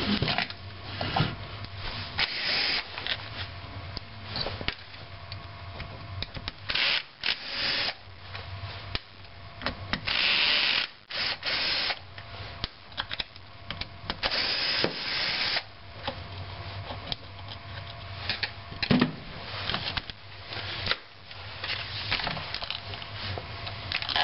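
Cordless power driver with a custom bit backing out the engine mount screws from the underside of a nitro RC truck chassis. It runs in several short bursts of about a second each, with clicks and handling noise between them.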